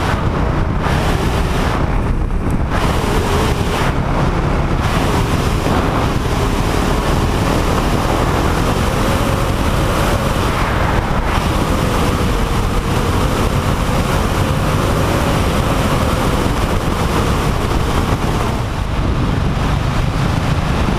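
Wind rushing over a helmet-mounted camera microphone on a moving motorcycle, with the Husqvarna's engine running underneath; a faint engine tone rises and falls a little as the ride goes on.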